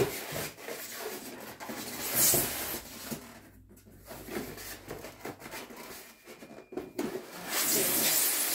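Cardboard packaging being handled: a box flap pulled open and an inner cardboard tray sliding and scraping out of the long outer carton, with rustling in between. There is a short loud scrape about two seconds in and a longer, louder slide near the end.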